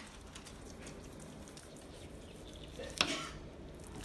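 A long knife slicing through smoked brisket on a plastic cutting board, faint and soft, with one sharp knock about three seconds in.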